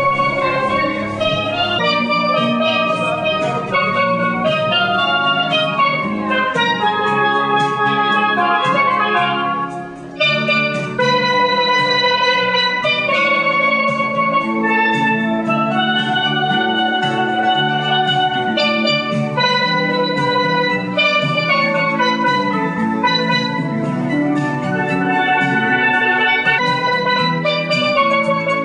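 Steel pan (steel drum) played with mallets: a quick, bright melody of ringing notes that carries on with only a brief dip about ten seconds in.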